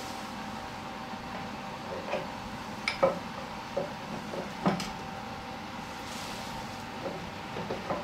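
Scattered metal clicks and clunks as the hex drive shaft carrying the friction wheel is worked loose and slid out of a Power Smart DB7659A snowblower's frame by hand. Two sharper knocks, about three and about four and a half seconds in, are the loudest. A faint steady hum runs underneath.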